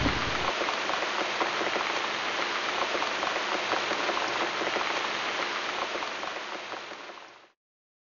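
Steady rain falling, fading out near the end and then cutting off to silence.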